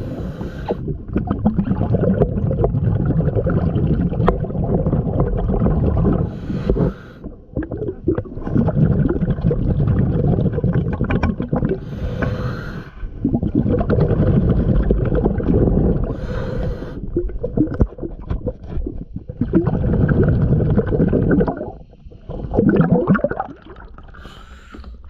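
A diver's breathing regulator underwater: long bubbling exhalations of a few seconds each, about six of them, broken by short quieter pauses for the in-breath.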